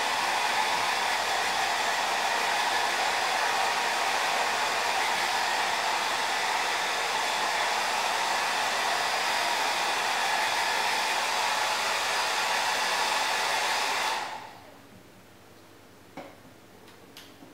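Handheld hair dryer running with a steady rush of air, switched off about fourteen seconds in and quickly winding down. A couple of faint ticks follow.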